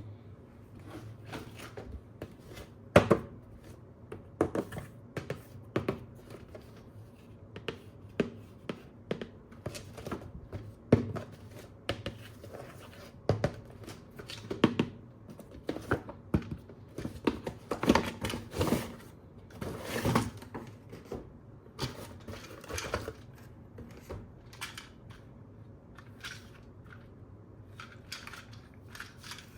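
Plastic toys and packaging being handled: irregular clicks, taps and short rustles, busiest around the middle and sparse near the end.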